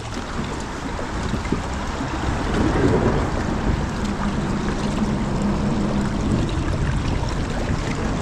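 Kayak on a shallow creek: water sloshing and wind rumbling on the microphone, with a faint steady hum for a couple of seconds around the middle.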